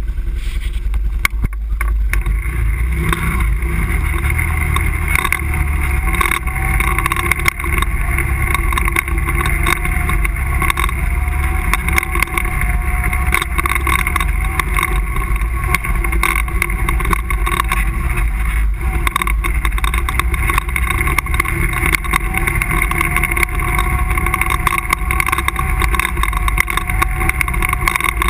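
ATV engine running steadily as the quad drives along a rutted dirt trail, with frequent knocks and rattles as it goes over bumps.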